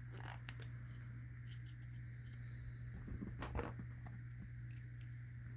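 Faint handling of gas mask parts as the valve flapper pieces are fitted: a few light clicks and rustles, one about half a second in and a small cluster about three and a half seconds in, over a steady low hum.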